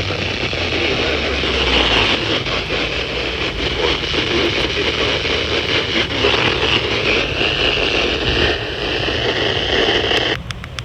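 Steady rushing noise of a car cabin mixed with weather-radio hiss. A faint thin tone comes in past the middle; near the end the noise drops away with a few sharp clicks.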